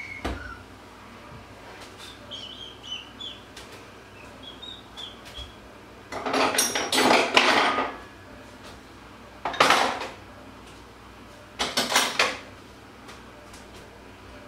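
Metal cutlery and dishes clattering in three bouts: a long rattle of about two seconds about halfway through, then two short clatters.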